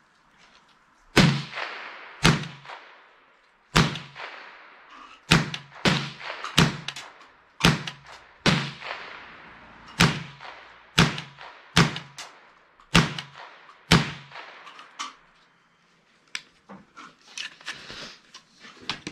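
Smith & Wesson M&P AR-style .22 LR semi-automatic rifle firing about thirteen single shots at an uneven pace of roughly one a second, each a sharp crack with a short ringing echo. Near the end the firing stops and gives way to quieter small clicks and rattles.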